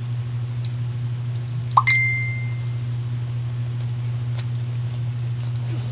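A single clink with a short clear ring about two seconds in, a metal spoon striking a plate during eating, over a steady low hum.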